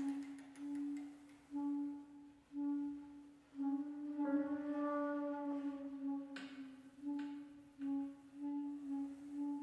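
Contemporary ensemble music: a low flute note pulsing about once a second, swelling and fading each time. Through the middle it is held longer under a chord of higher tones, and a sharp knock comes about six seconds in.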